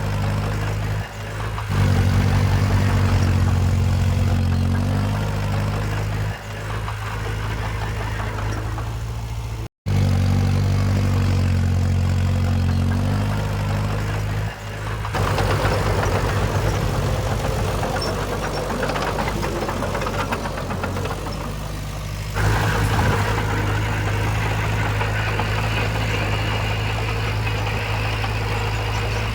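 Heavy-equipment diesel engine running and revving up and down under load. The sound cuts out for a moment about ten seconds in, then carries on, with the engine note changing a few times.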